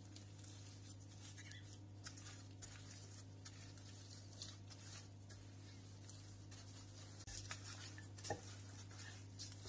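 Near silence over a steady low hum, with faint soft taps and rubs from a wooden rolling pin rolling dough out on a granite countertop, and a small knock near the end.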